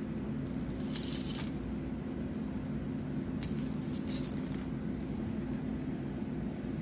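Bracelets clinking and rattling as they are handled, in two brief bursts, about a second in and again around four seconds, over a steady low hum.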